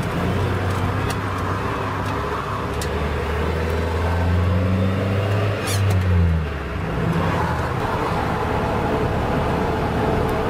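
Engine and road noise inside the cab of a van driving on a highway: a low steady engine hum whose pitch shifts a few times as the revs change, with one short click near the middle.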